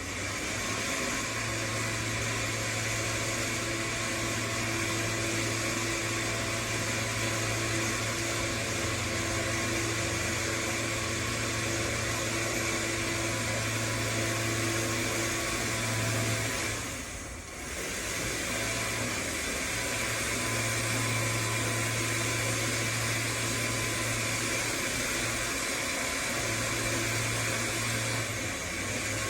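Electric winch running steadily as it spools its cable back in, with a brief drop in the motor sound about 17 seconds in.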